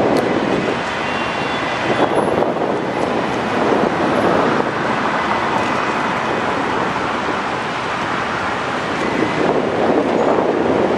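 Steady roar of city traffic mixed with wind buffeting the microphone.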